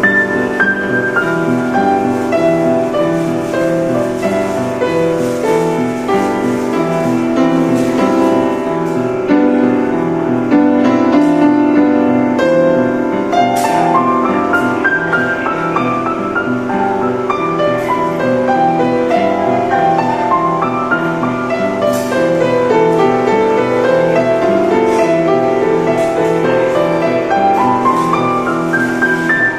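Upright piano played by hand: a flowing piece with chords underneath and several quick rising runs of notes up the keyboard.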